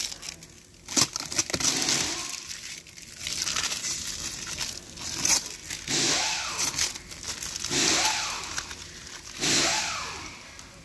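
Clear protective plastic film being peeled and pulled off a car's interior door trim, crackling and tearing in uneven rasps with a few short squeaks as it stretches and comes away.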